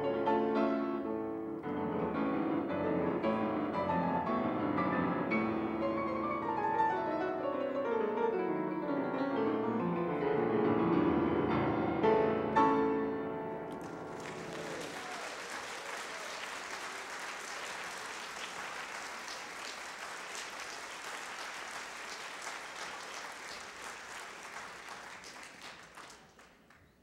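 Classical solo piece on a Steinway & Sons grand piano, with a descending run and closing chords about halfway through. The audience then applauds, the applause dying away near the end.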